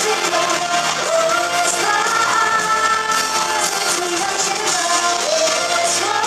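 K-pop song played loud through a concert hall's sound system, with a woman's sung melody over a full backing track.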